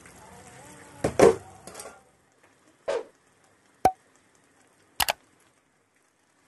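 A brief rush of noise about a second in, then sharp single clicks and a quick double click, like a computer mouse-click sound effect.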